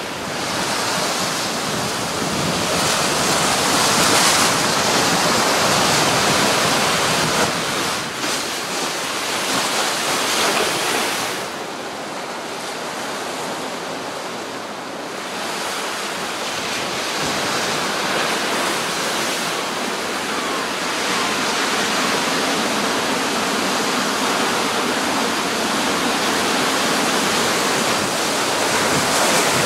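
Heavy storm surf breaking and surging against a seawall and pebble shore, a continuous rush of water that eases for a few seconds near the middle.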